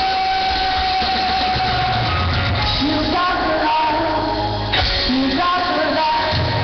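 Live band with a woman singing lead: she holds one long note for about two seconds, then sings shorter phrases over a pulsing bass. The sound is a low-quality recording made from the audience in a large hall.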